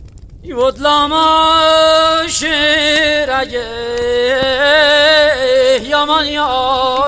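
Solo violin playing a slow, mournful Qashqai melody: long held notes with vibrato and sliding ornaments, coming in about half a second in.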